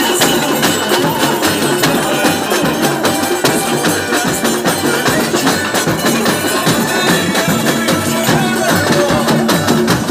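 Live street band playing a steady, driving rhythm: drums and a tambourine beating together with small strummed guitars.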